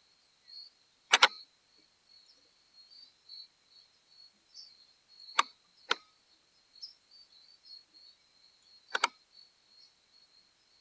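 A handful of sharp clicks, two of them in quick pairs, over a faint steady high-pitched tone.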